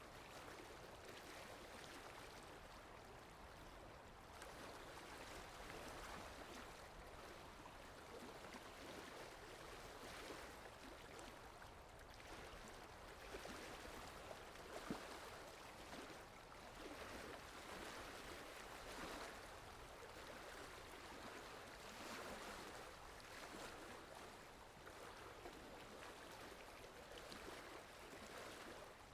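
Water lapping, with wind: a faint, uneven wash of noise that swells and eases every second or two, with a couple of sharper slaps about halfway through.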